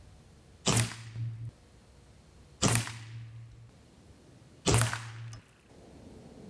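Weihrauch HW98 .22 break-barrel spring-piston air rifle fired three times, about two seconds apart. Each shot is a sharp crack followed by a short low hum.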